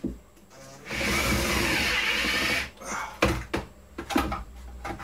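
Cordless drill driving a screw into wood: one steady run of just under two seconds starting about a second in, followed by a few short knocks.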